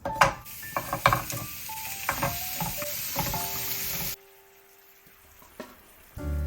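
Chicken sizzling hard in a hot frying pan, with scattered clicks and knocks of a utensil against the pan. The sizzle cuts off suddenly about four seconds in, leaving near quiet until music starts near the end.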